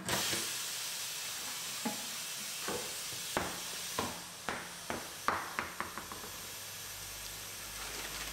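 Tire being mounted on a wheel on a tire-changing machine: a steady hiss with a run of sharp knocks and clicks from about two to six seconds in.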